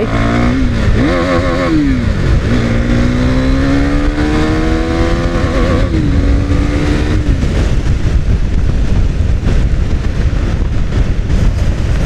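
KTM Duke 390's single-cylinder engine under hard acceleration. Its pitch drops at an upshift about two seconds in, climbs steadily again, then holds lower around six seconds in and fades as the throttle closes. Wind rush over the microphone takes over for the second half.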